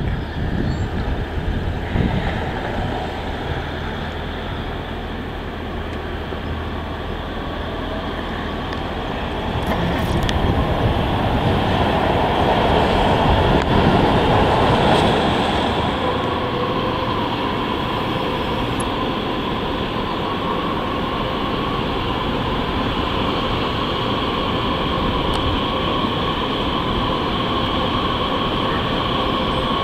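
San Francisco Muni Breda light-rail cars running on street rails. The train grows louder as it passes close about halfway through. After that a slow-moving car on curving track gives a steady wheel squeal that lasts to the end.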